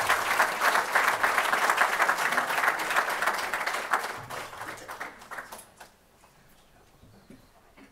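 Audience applauding, the clapping thinning out about four seconds in and dying away by about six seconds.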